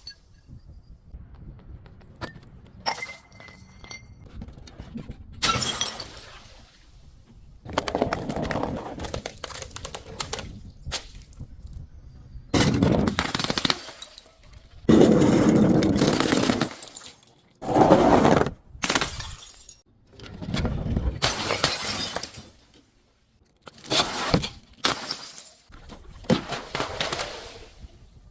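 Glass bottles breaking and being crushed: a series of irregular crunching and shattering bursts, some sharp and brief, others grinding on for a second or two, with short quieter gaps between.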